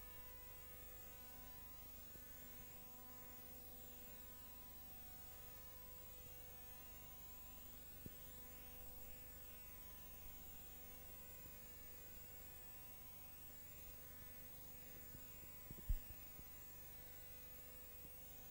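Near silence with a faint, steady electrical buzz, broken by a faint tick about halfway through and a sharper click a couple of seconds before the end.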